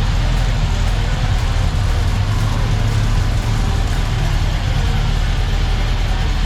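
Historic race car engine idling steadily, with a constant low rumble.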